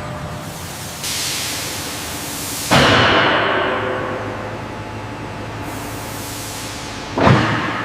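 Heavy-machinery factory noise: a steady low mechanical hum with three sudden bursts of hiss, each fading out over a second or two. The first comes about a second in, the loudest just under three seconds in, and another near the end.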